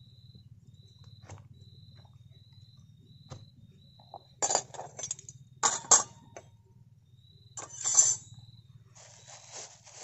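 Stainless steel spoons and a ladle clinking and clattering against each other and the plastic cutting board as they are picked up: three sharp clatters a second or two apart. Near the end, a plastic bag crinkles.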